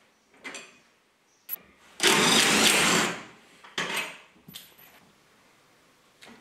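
A power tool on a socket runs for about a second, around two seconds in, spinning out a bolt that holds a car seat runner to the floor. Short metallic clicks and knocks from the socket and seat runner come before and after it.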